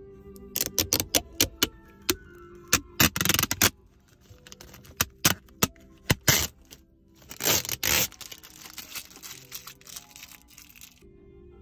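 Protective plastic film being peeled off a new car's interior console trim: a quick run of sharp crackles and several longer ripping tears, stopping about eleven seconds in. Background music plays underneath.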